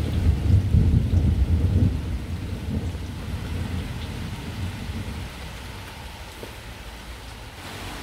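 Thunder rumbling, loudest in the first two seconds and then slowly dying away, over steady rain.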